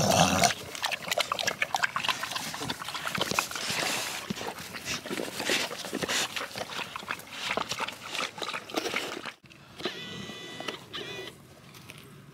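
A dog lapping and slurping water from a metal pot: a dense, irregular run of quick wet clicks and splashes. It cuts off suddenly near the end, followed by a short high whine.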